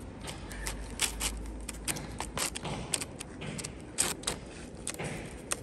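A calico cat and a black kitten eating chunks of wet cat food from clear plastic tubs: quick, irregular smacking and clicking chews, the loudest about a second in and about four seconds in.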